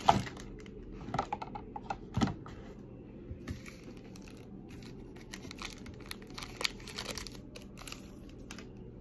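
A pack of soccer trading cards being opened and handled by hand: the wrapper crinkling and tearing and the cards shuffled, as scattered crackles and taps, loudest near the start and about two seconds in.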